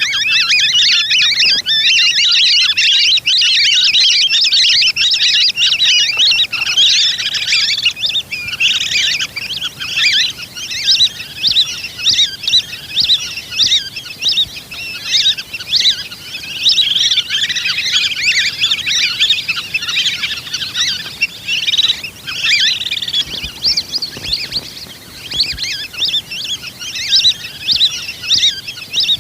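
A flock of lesser whistling ducks calling: a dense, overlapping chatter of high whistles. It is almost unbroken for the first several seconds, then comes in quick rising and falling bursts.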